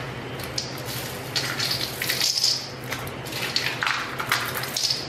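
Hands kneading and squishing thick cookie dough studded with M&M candies in a stainless steel mixing bowl: irregular squelching scrapes with short clicks.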